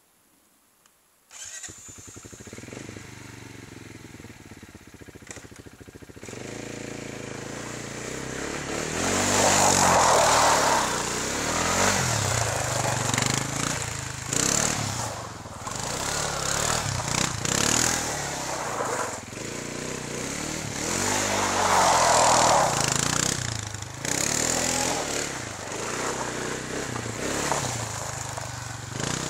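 Kymco Maxxer 300 quad's single-cylinder four-stroke engine starting about a second in and running at idle, then revving up and down repeatedly as it is ridden, with two long, loud revs about a third of the way in and again about two-thirds in.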